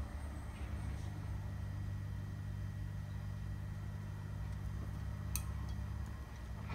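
Steady low background hum, with one sharp click about five seconds in.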